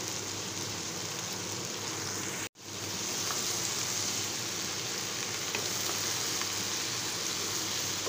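Chopped okra, onion, tomato and green chillies sizzling steadily in hot cooking oil in a non-stick kadhai. The sizzle cuts out for a split second about two and a half seconds in, then picks up again.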